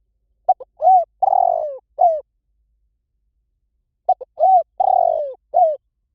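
Spotted dove cooing: two phrases, each a few short notes and then longer arched coos, the second phrase repeating the first after a pause of about two seconds.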